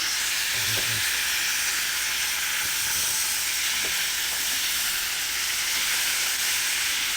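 Floured chicken pieces frying in a pot of hot oil: a steady, even sizzle.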